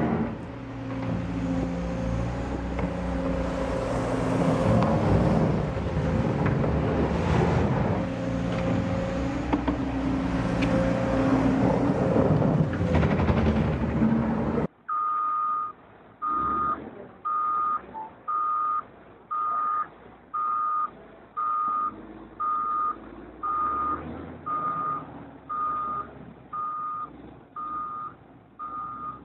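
Excavator's diesel engine running as its wide blade pushes snow. About halfway through it cuts to a reversing alarm from a motor grader, beeping a single high tone about once a second over faint engine rumble.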